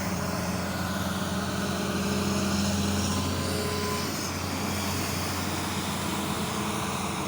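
Hitachi ZX200 excavator's diesel engine running steadily with a low, even drone, getting slightly louder a couple of seconds in.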